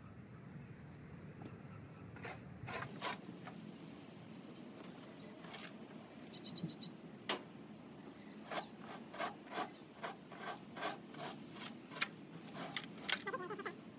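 Rakes scraping and rustling through dry grass and leaves on a lawn, in a run of short, sharp strokes that come more often in the second half.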